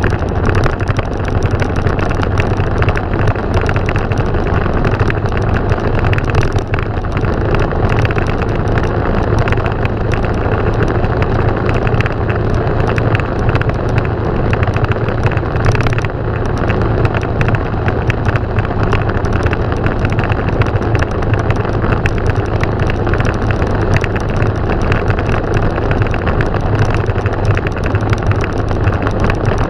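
Motorcycle engine running at a steady speed under constant wind rush, as heard riding along, with a steady low hum throughout.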